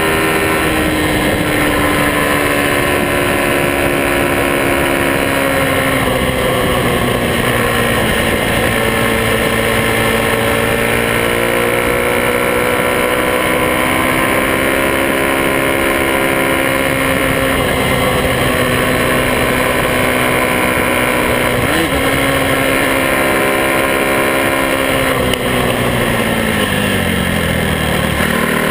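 Small single-cylinder four-stroke Honda Monkey mini-bike engines running. Their pitch rises and falls as the bikes speed up and slow down, with more than one engine note at once, and drops away steeply near the end as a bike slows.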